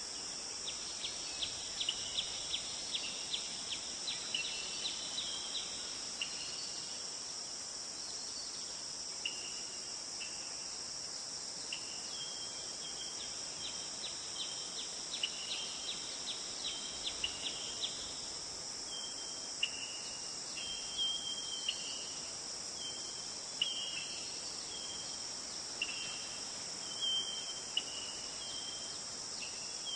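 Steady, high insect chorus with many short chirps over it: quick runs of ticking chirps in the first several seconds, then brief separate chirping notes through the rest.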